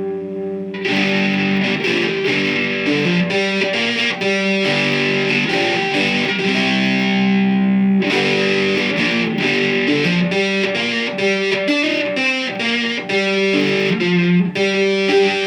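Homemade electric oil can banjo (five-string banjo neck on a Marvel Mystery Oil can body with a lipstick tube pickup) played through a heavy metal distortion setting: picked notes and chords ringing with long sustain.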